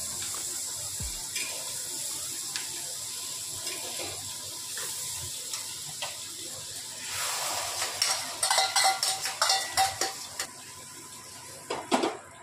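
Butter sizzling steadily in a hot pan. About seven seconds in, a spoon beats a mixture in a steel bowl with rapid clinking strokes for a few seconds. A utensil knocks against the pan near the end.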